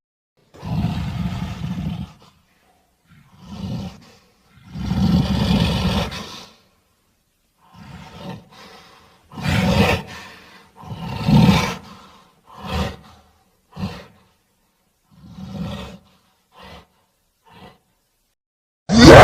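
King Kong creature roar and grunt sound effects, built from animal roars: about a dozen separate calls with silences between, the longer ones lasting a second or two and the last few brief, clipped grunts.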